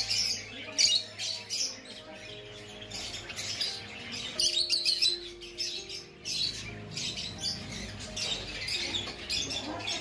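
A flock of caged birds, lovebirds among them, chirping and squawking with many short, high calls overlapping throughout.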